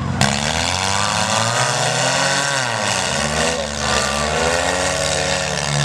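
Several demolition derby compact cars' engines revving up and down over one another. There is a sharp knock just after the start.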